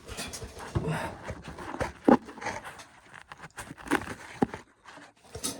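Dry ear corn being handled by hand, with irregular scraping and sharp clicks of cobs and kernels.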